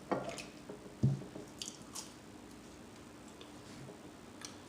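Close-miked chewing and wet mouth smacking as a person eats a taquito, with a few short wet clicks in the first two seconds before the chewing goes quiet.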